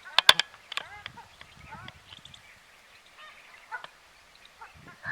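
Birds calling: a run of short calls, each arching up and down in pitch, with a few sharp loud clicks near the start.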